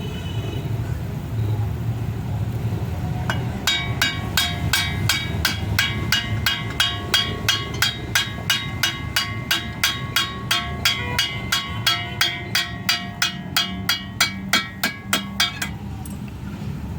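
Hammer blows on metal, about three a second for roughly twelve seconds, each strike ringing with a clear metallic tone, over a low rumble of traffic. The strikes start about three seconds in and stop about a second before the end.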